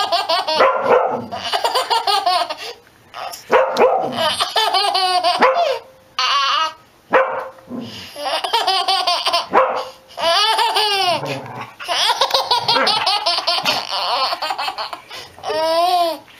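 A baby laughing hard in repeated bursts, with a dog barking among the laughs.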